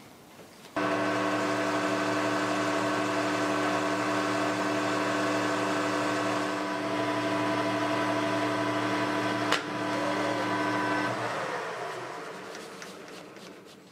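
Metal lathe started about a second in: the spindle runs at a steady speed with a humming whine while a turning tool faces the end of a 4140 steel bar. There is a single sharp click near the ten-second mark. Shortly after, the motor is switched off and the spindle coasts down, the sound fading away.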